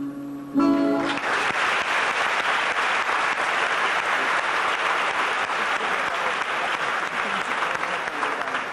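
Audience applause that breaks out about a second in and goes on steadily, easing slightly near the end.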